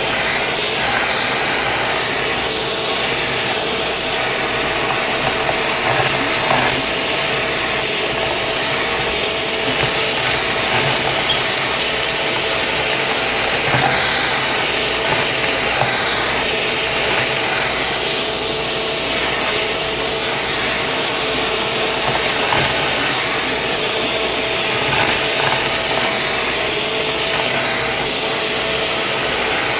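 Shark vacuum running with its crevice tool: a steady rush of suction with a motor whine, and scattered crackling clicks of confetti and glitter being sucked up the nozzle.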